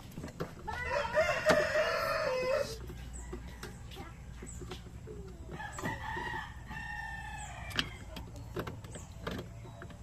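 A rooster crowing twice: a long crow about a second in, then a second, fainter crow near the middle. Scattered small clicks and knocks run underneath.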